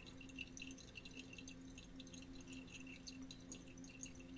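Near silence: room tone with a faint steady hum and scattered faint ticks.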